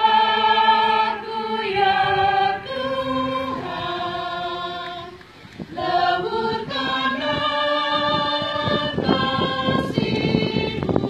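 Church choir of mostly women's voices singing a hymn together in harmony, unaccompanied, with a short break between phrases about five seconds in.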